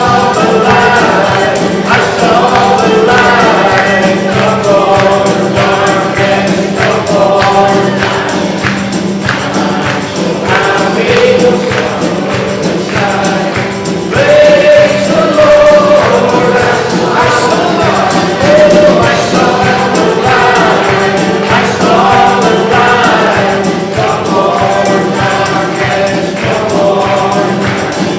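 Church worship music: many voices singing a gospel song together with a band, with a steady low note and percussion keeping the beat.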